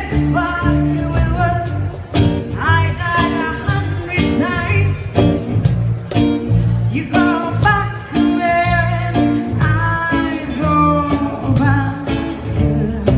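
A pop song: a singer's voice over guitar, a strong bass line and a steady beat.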